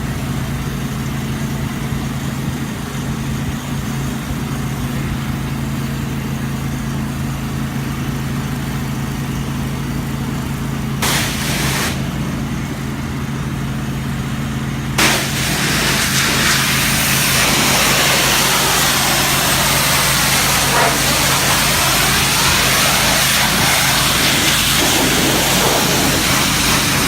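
Engine of a hot-water pressure washer running steadily. About eleven seconds in the wand sprays briefly, and from about fifteen seconds in it sprays continuously, a loud hiss over the engine.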